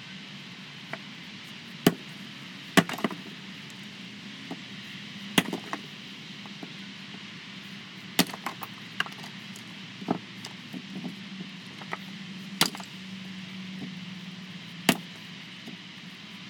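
About seven sharp knocks at irregular intervals, two to three seconds apart, over a steady low hum.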